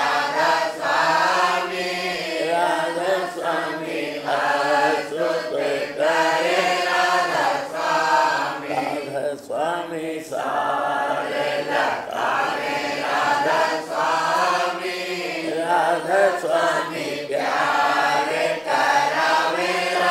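Devotional chanting by several voices: a Radhasoami shabad sung in repeating melodic phrases.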